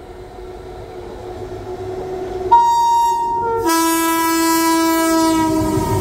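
A WAG-9HC electric locomotive approaches with a growing rumble, then sounds its horn about two and a half seconds in. It gives a short blast, then straight after it a longer blast with more tones, over the noise of the passing freight train.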